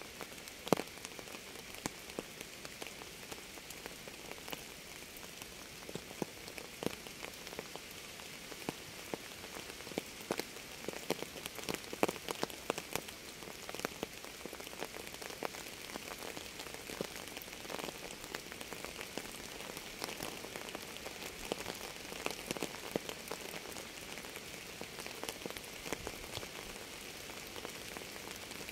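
Steady rain falling, with many individual drops striking close by as irregular sharp taps. A few louder drops stand out, about a second in and around twelve seconds.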